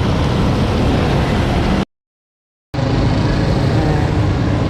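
Steady road-traffic and engine noise, a dense low rumble with a hiss above it. It drops out to total silence for under a second about two seconds in, then resumes.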